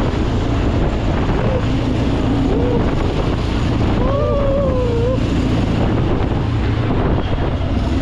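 Amphibious tour vehicle's engine running steadily under way, with wind on the microphone.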